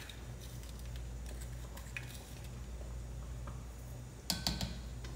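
Metal measuring spoon clinking against a small salt dish and the rim of an enamelled pot as salt is measured and tipped in: a few light clicks, then a quick cluster of sharper clinks about four seconds in, over a steady low hum.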